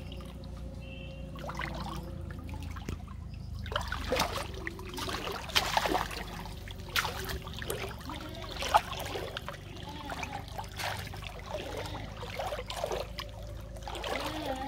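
Shallow pond water splashing and trickling around a cast net as it is gathered up by hand with a large fish in the mesh. Fairly quiet for the first few seconds, then a run of short, sharp splashes from about four seconds in, the loudest a little before nine seconds.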